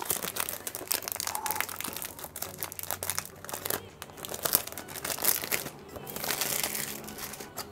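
Cellophane shrink-wrap being torn and peeled off a perfume box: a dense run of small crinkling crackles, with a longer rustling tear about six seconds in.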